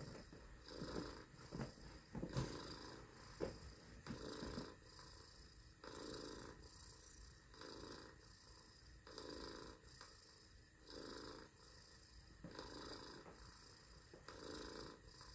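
A person imitating a cat's purr, a soft rolling purr that rises and falls with each breath, about once every one and a half seconds.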